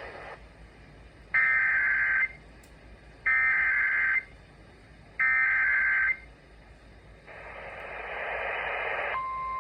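EAS SAME header data bursts on NOAA Weather Radio: three identical warbling digital bursts about a second each, a second apart, announcing the severe thunderstorm warning. A short stretch of radio hiss follows, then the steady 1050 Hz warning alarm tone starts near the end.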